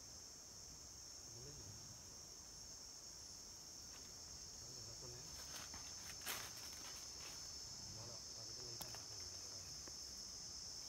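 Steady high-pitched drone of forest insects, with a few sharp crackles about six seconds in and again near nine seconds.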